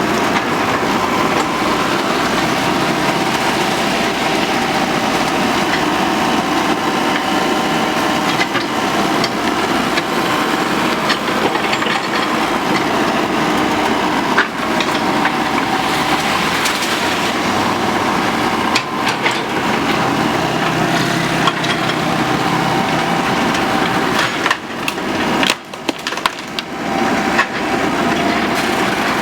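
Excavator engine running under load while bamboo stalks crack and splinter as the machine breaks them down, with many sharp cracks over a steady engine noise. The noise drops briefly near the end.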